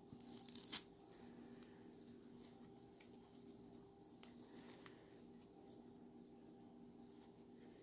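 Faint rustling of a Catit Groovy Fish cat toy's plush fabric cover being handled, with a short burst of rustling ending in a sharp click a little under a second in, and another click about four seconds in. A faint steady hum sits underneath.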